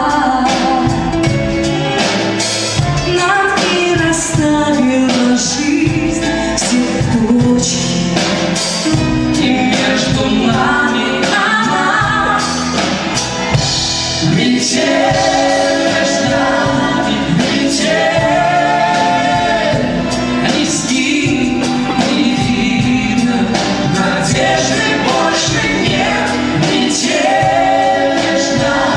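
Live band playing a song, with a singer's voice over the band.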